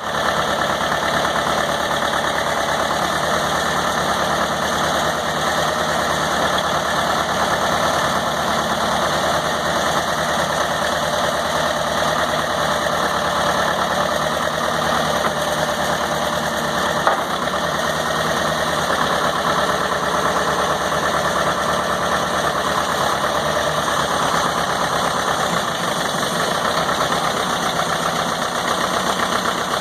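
Case 580B backhoe loader's engine running steadily at idle, with a single brief click about halfway through.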